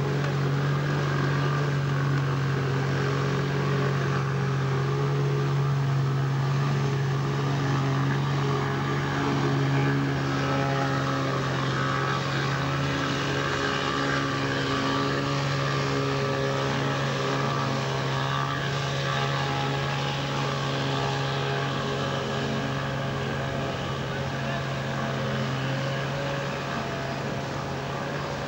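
Small fishing boat's motor running steadily, a constant low hum with higher overtones.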